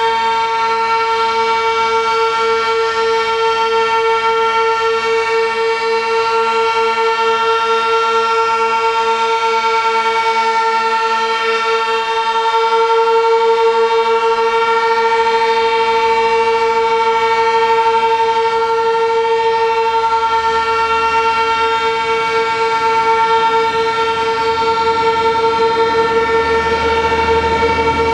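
Sentry 16V1T-B and Federal Signal Model 2 outdoor warning sirens sounding a loud, steady wail during their weekly test. The tones hold a level pitch with a regular pulsing as the rotating horns sweep.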